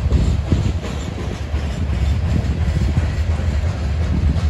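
Norfolk Southern freight train rolling past, a steady heavy low rumble of cars and wheels with irregular clicks of wheels over the rail joints.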